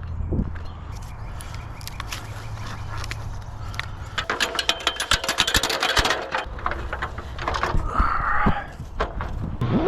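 Handling noise of gear being moved: a quick run of clicks and rattles with some scraping, over a low steady hum that stops about four seconds in.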